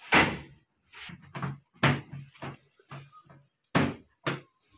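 An irregular series of sharp, hollow knocks and thumps on a car's sheet-metal body and trim, about eight in under five seconds, the first the loudest.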